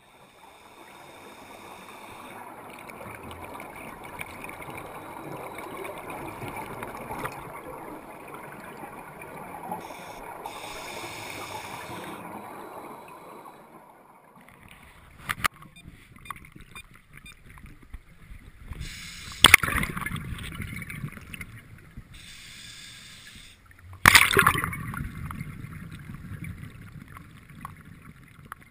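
Scuba divers' exhaled air bubbles heard underwater through a GoPro housing: a steady muffled rushing and gurgling for the first half, then a sharp click and two loud bursts of bubbles from a regulator exhaust, the second fading over a couple of seconds.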